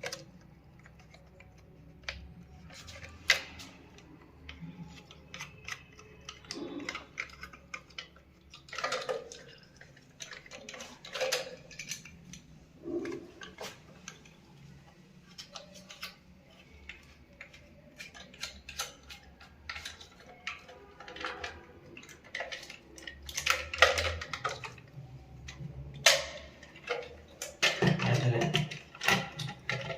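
Intermittent light clicks, taps and clatter of plastic concealed-cistern parts being handled and fitted by hand.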